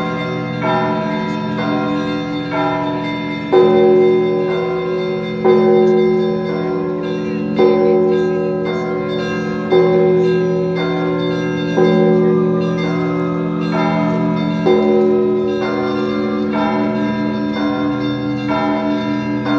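Orthodox church bells ringing a festive Easter peal: smaller bells ring on continuously over a deep bell struck about every two seconds.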